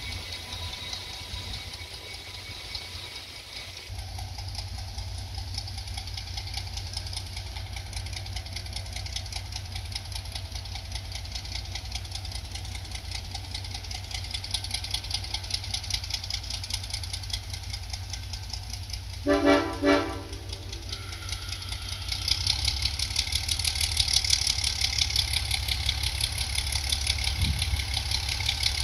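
Diesel locomotive idling with a steady low rumble. About two-thirds of the way in its horn sounds two short blasts, and a couple of seconds later the engine grows louder.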